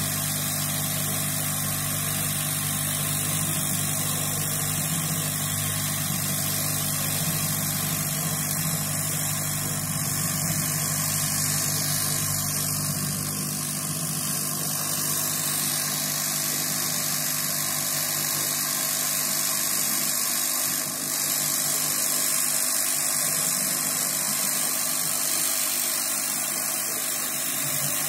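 Hot-air rework station's blower running steadily, a constant rushing hiss from the hot-air gun as it heats flux-coated corroded resistors on a motherboard, over a steady low hum whose deepest part drops away about halfway through.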